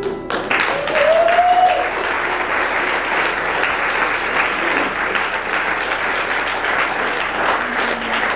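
Audience applauding after a song ends, with one rising shout about a second in.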